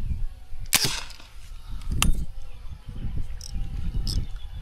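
A PCP air rifle rigged to shoot harpoon arrows fires once, about a second in, with a single sharp crack. A shorter, sharp click comes about a second later, over a low rumble.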